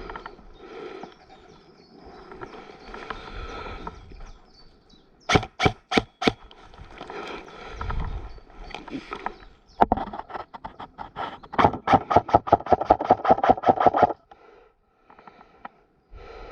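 Airsoft electric rifle firing: a quick run of about five shots, then a few single shots and a rapid burst of about two seconds. Shuffling movement noise is heard between the shots.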